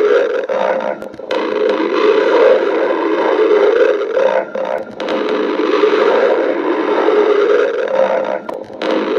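A woman's stomach growling: a long, continuous gurgling rumble that briefly drops away about a second in, twice around four and a half to five seconds, and again near the end.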